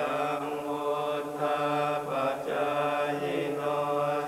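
Thai Buddhist monks chanting together in low male voices, a near-monotone recitation held on one pitch in short phrases with brief breaks between them.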